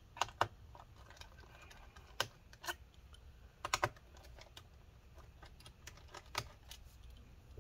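Scattered light clicks and taps, some in quick pairs and one quick triple, from a small screwdriver and tiny screws being handled against a laptop's plastic bottom cover while its screws are removed.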